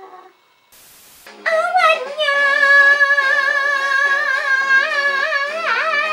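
A voice singing one long, high held note with a wide vibrato over instrumental backing. A short hiss comes about a second in, just before the note starts.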